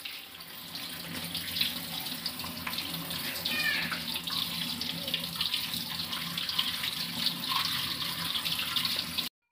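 Kitchen tap running steadily onto boiled ash gourd pieces in a metal colander, with hands turning and rubbing the pieces to rinse them. The water sound stops suddenly just before the end.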